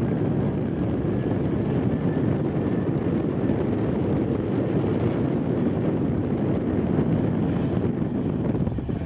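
Boeing 737-800's CFM56-7B turbofan engines running at taxi thrust: a steady noise with a faint high whine, mixed with wind buffeting the microphone.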